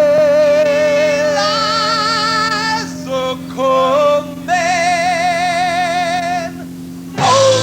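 Live music: wordless sung notes held long with a wavering vibrato over a steady low sustained accompaniment, with a choppy run of short notes in the middle and a loud new entry near the end.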